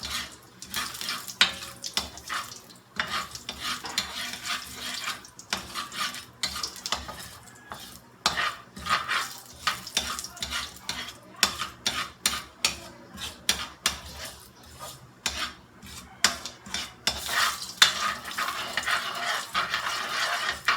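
A utensil stirring and scraping in a pan in quick, irregular strokes, over the sizzle of fenugreek and cumin seeds frying in hot oil until they brown.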